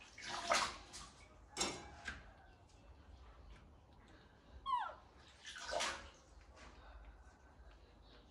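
A baby macaque gives one short squeal that falls steeply in pitch about two-thirds of the way through, among several brief hissing, rustling bursts.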